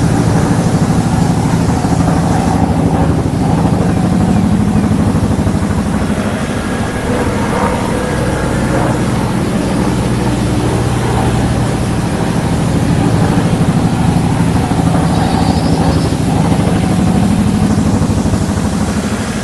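An engine running steadily, dipping slightly in level about seven seconds in and rising again later.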